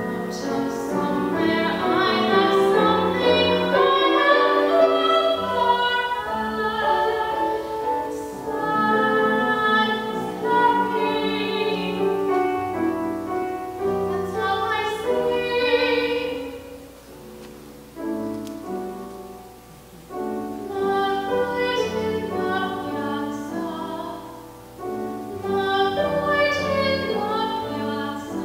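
A young woman singing a musical-theatre song in a classical, operatic style with piano accompaniment, the music softer for a few seconds about two-thirds through.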